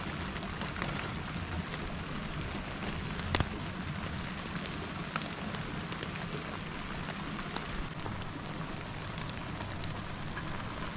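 Steady rain pattering, full of small drop ticks, with one sharper click about three and a half seconds in.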